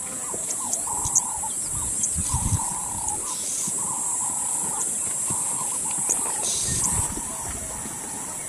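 Plains zebras calling in a long series of short barking yelps, one after another roughly every half second, over a steady high hiss.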